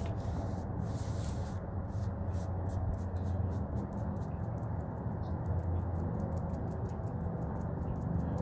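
Steady low rumble of outdoor background noise, with faint soft dabbing of a foam paint brush against a wooden picket board.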